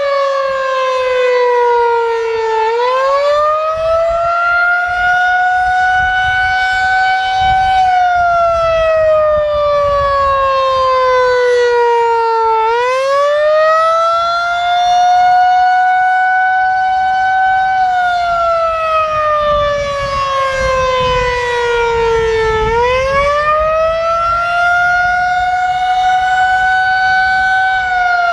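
Federal Signal 2001-SRNB electromechanical warning siren sounding the Attack signal during a test. It winds up quickly in pitch, holds its high tone for a few seconds, then slowly winds down, and the rise-and-fall repeats about every ten seconds, three times.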